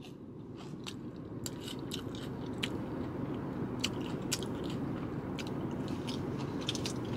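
Someone chewing food, with scattered sharp crunches and clicks over a steady low rumble that grows a little louder over the first few seconds.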